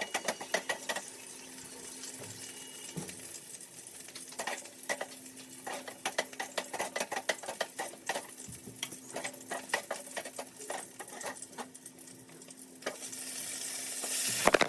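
Spatula stirring and scraping in a cooking pan with repeated clinks, over food sizzling; the sizzle grows louder near the end.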